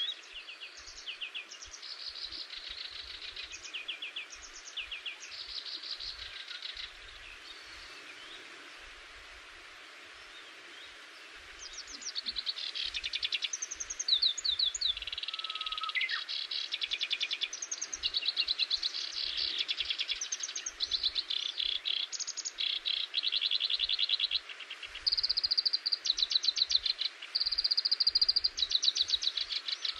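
Songbirds singing in fast, high trills of rapidly repeated notes. The trills are fairly quiet at first and nearly stop for a few seconds about a third of the way in. They then return louder and almost unbroken through the second half.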